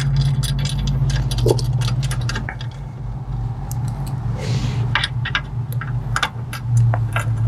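Scattered metal clicks and clinks of bolts and a wrench being worked on the back mounting bolts of a boat seat suspension's low-profile mounting box, over a steady low hum.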